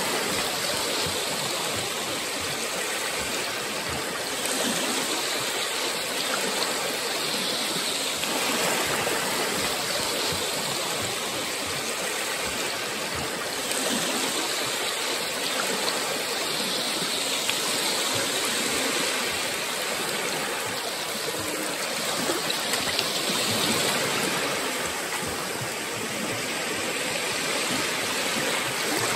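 Small Baltic Sea waves lapping and washing over a shallow sandy shore: a steady rush of water that swells every few seconds as each wave runs in.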